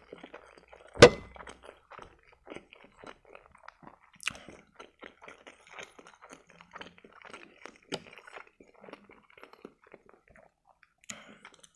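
Close-miked chewing and wet mouth sounds of a man eating boiled pelmeni (meat dumplings), with a sharp clink of the metal fork against the plate about a second in, the loudest sound, and a couple of lighter clicks later.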